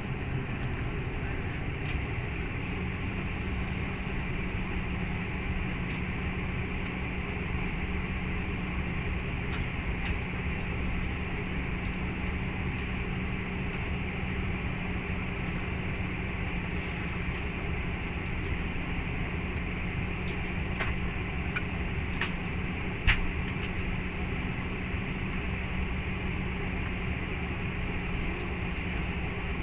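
Cabin noise inside a Bombardier Q400 turboprop airliner: a steady drone from the engines and propellers over a low rumble. There is one sharp click about 23 seconds in.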